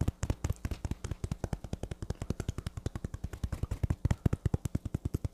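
Fingertips tapping quickly on the face in a percussion self-massage, as dull taps about nine a second at an even rhythm.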